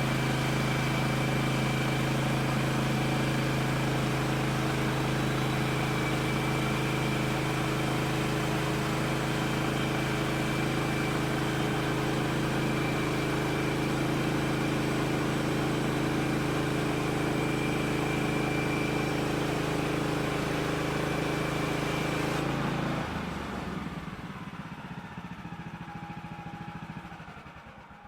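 A sawmill's gasoline engine runs at a steady speed. About three-quarters of the way through it cuts off suddenly, and what is left fades away to silence.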